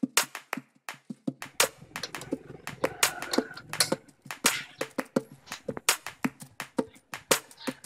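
Background music built from sharp percussive clicks and snaps at a quick, uneven pace.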